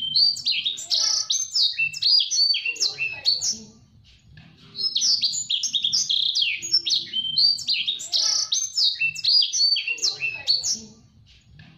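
Blacksang, a black-throated canary × sanger hybrid, singing a fast, tightly packed song of quick high chirps and trills. It comes in two long bursts with a pause of about a second between them.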